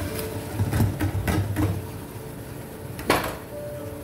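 Moongre (radish seed pods) tipped from a plastic bowl into hot masala in an aluminium pressure cooker, with a few knocks of bowl and spatula against the pot. One sharper, louder knock comes about three seconds in.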